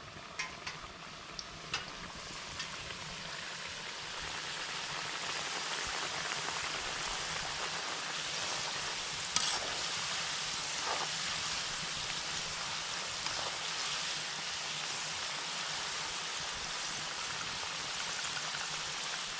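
Chips deep-frying in hot oil in a metal wok: a steady sizzle that builds over the first few seconds and then holds. A few light clicks of a slotted metal spoon against the pan come in the first couple of seconds and once about halfway.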